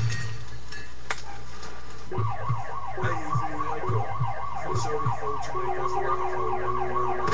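Intro of a rap track: a rapid wailing siren sound, sweeping over and over, comes in about two seconds in over deep rhythmic bass thumps.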